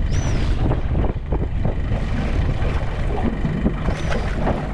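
Steady rumble of wind buffeting the microphone on a small boat at sea, with short splashes and slaps of water at the boat's side as a hooked kingfish is grabbed at the surface.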